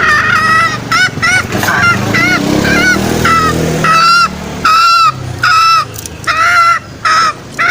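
Green junglefowl giving a fast series of short, hoarse, arching calls, roughly two a second, the kind of call used to lure junglefowl out.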